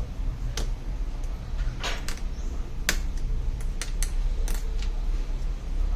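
Scattered sharp clicks and taps, about eight of them at uneven intervals, over a steady low hum.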